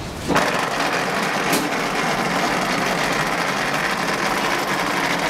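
Automatic wall-rendering machine running with a steady mechanical drone as its mortar hopper climbs the mast, spreading plaster on the wall.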